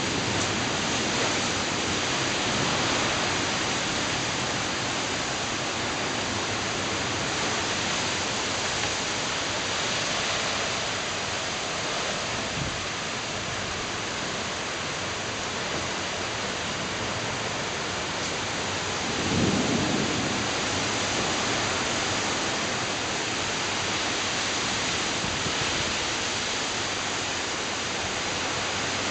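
Heavy wind-driven rain pouring down in a storm, a steady dense hiss, with a brief louder low swell about twenty seconds in.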